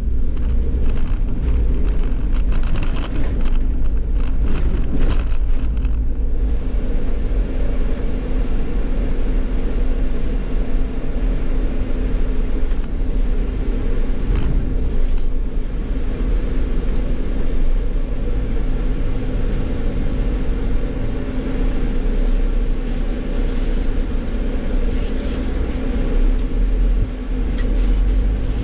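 Irisbus Cityclass city bus with an Iveco Cursor compressed-natural-gas engine driving, heard from the driver's cab: a steady low engine and road rumble with a constant hum. Rapid irregular clicks and rattles sound over it for the first six seconds or so.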